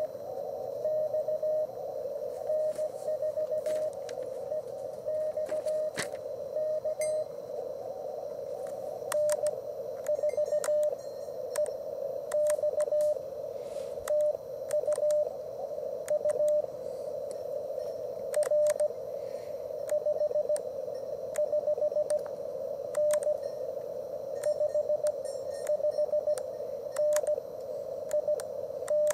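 Morse code (CW) from an Elecraft KX3 transceiver: a single mid-pitched tone keyed on and off in dots and dashes, over a narrow band of receiver hiss with scattered faint clicks. It is a contact exchange in which a 559 signal report is sent.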